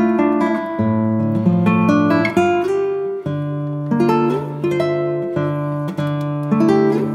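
Background music: acoustic guitar playing plucked notes and strummed chords at a steady pace.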